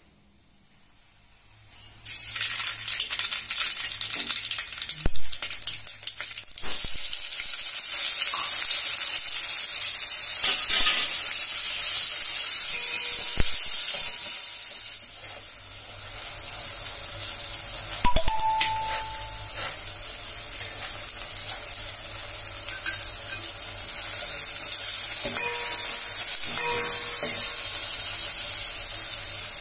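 Chopped onions and tomato frying in hot oil in a stainless steel pot, sizzling steadily from about two seconds in, while a steel ladle stirs and now and then knocks against the pot's side.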